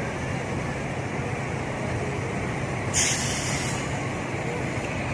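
Steady road traffic noise with a low hum, and a short loud hiss about three seconds in.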